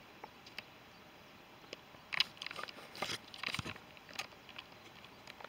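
Faint, irregular crunching and clicking, a scatter of short sharp sounds that starts about two seconds in and dies away after a couple of seconds.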